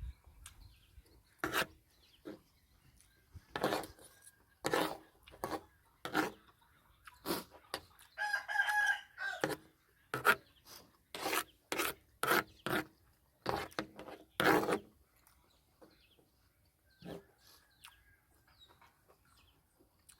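Close eating sounds: chewing and mouth noises in short bursts, a few every couple of seconds. A rooster crows once, about eight seconds in, lasting about a second and a half.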